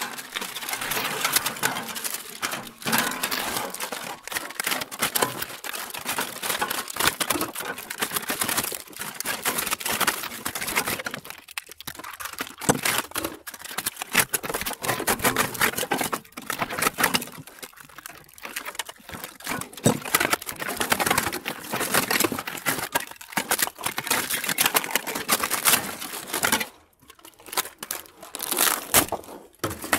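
Crinkling and crackling of a welder transformer's strip winding and its insulating tape and paper being unwound by hand, a continuous rustle full of small clicks that pauses briefly near the end.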